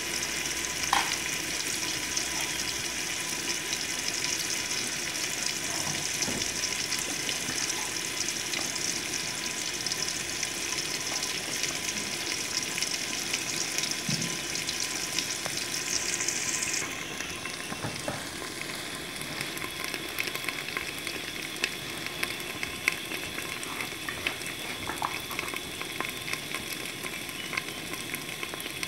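Paste of onion, garlic and green chilli sizzling in hot ghee in an aluminium degchi: a steady frying hiss with scattered crackles. The hiss drops a little quieter a bit over halfway through.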